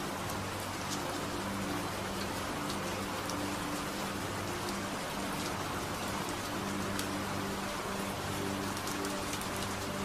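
Steady rain with scattered individual drop ticks, over a low sustained droning tone that fades in and out: a rain-sound delta-wave relaxation track.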